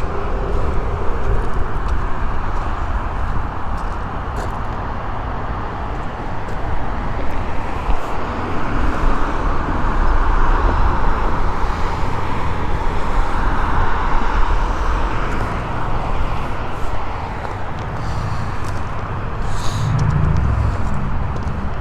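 Freeway traffic noise: a steady wash of cars and trucks, swelling and easing as vehicles pass, with a low rumble underneath.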